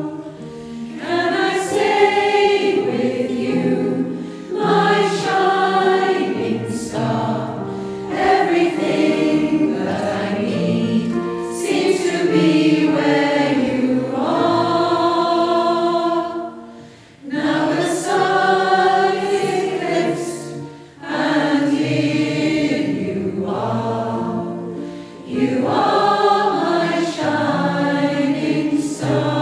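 Choir singing in long sustained phrases, with brief breaks between phrases about 17 and 21 seconds in.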